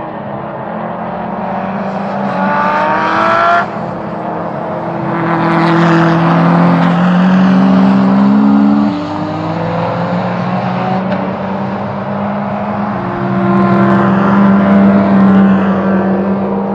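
Race car engines running hard on a circuit. The pitch climbs with the revs and falls back at each change, with a sudden cut-off about three and a half seconds in.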